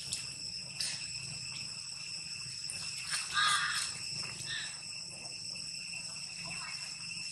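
Steady high-pitched insect chorus, several pitches held together, with a few light clicks and one short call about three seconds in.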